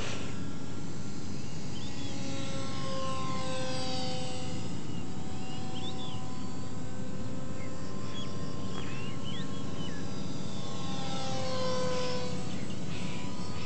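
Electric RC foam plane's motor and propeller whining in the air, making two passes with a falling pitch as it goes by, about three seconds in and again near the end. Short bird chirps sound in between.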